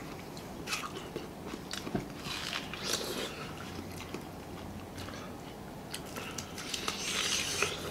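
Close-up eating sounds of two people biting and chewing watermelon and fried chicken. They come as scattered short clicks and mouth noises, with a longer burst of noise near the end.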